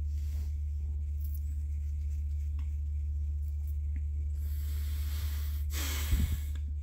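A steady low hum, with a soft breath hiss about four and a half seconds in and a louder breath blown close to a phone microphone about six seconds in.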